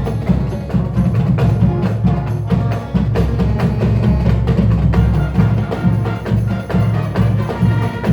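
Marching band music led by busy percussion: rapid, dense drum strokes over a heavy low end.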